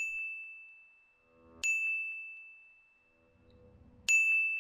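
A bell-like ding sound effect sounds three times, at the start, about a second and a half in and near the end, each a single high tone that rings out and fades. The dings mark the count of redacted [DATA EXPUNGED] passages going up.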